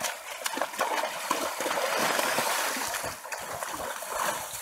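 Horse wading through shallow pond water, its legs churning and splashing; the splashing is loudest about halfway through.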